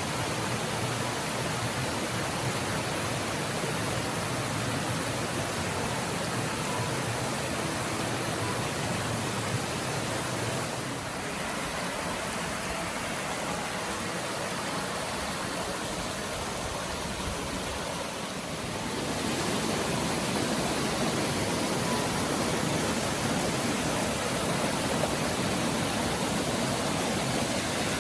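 Rushing water of a spring-fed mountain stream cascading over rock. The steady rush changes in tone about eleven seconds in and again about nineteen seconds in, and is a little louder after that.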